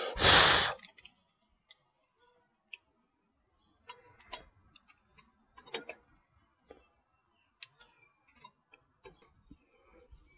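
Brake caliper being worked back over the disc of a 1999 Arctic Cat 300 ATV's wheel hub by hand: scattered light metal clicks and taps. Right at the start there is one short, loud rush of noise.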